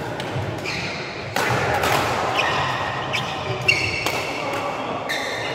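Badminton rackets striking a shuttlecock in a fast doubles rally: several sharp hits that echo in a large sports hall, the loudest about a third and two-thirds of the way through. Shoes squeak on the court floor between the hits.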